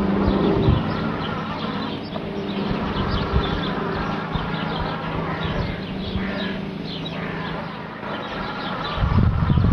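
Toadi robotic lawn mower humming steadily as it turns on the spot, with a low rumble at the start and again near the end.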